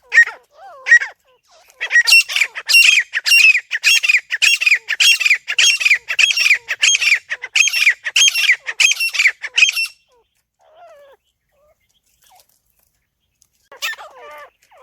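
Francolin (teetar) calling: a few short notes at first, then a fast run of sharp, evenly repeated notes at about two to three a second that goes on for some eight seconds and stops abruptly. Lower wavering calls start again near the end.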